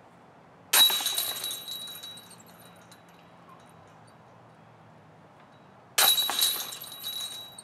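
Disc golf putter striking the hanging chains of a basket twice, about five seconds apart. Each hit is a sudden metallic crash of jangling chains that rings out and fades over a second or so.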